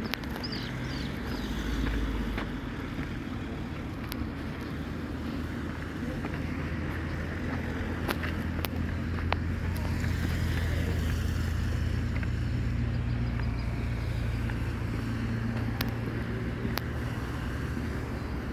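Road traffic passing on a road alongside: a steady low rumble of car engines and tyres that grows a little louder in the middle, with a few scattered clicks.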